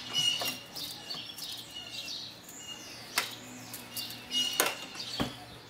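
A few sharp metal clicks and knocks from a bench vise and screwdriver as a vacuum-cleaner motor is clamped down, over high, bird-like chirps.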